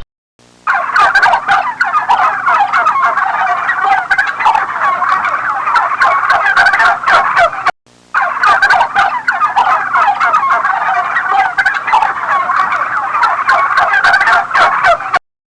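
Turkeys gobbling in a dense, continuous chorus of overlapping calls. It breaks off for a moment about halfway through, then resumes and stops shortly before the end.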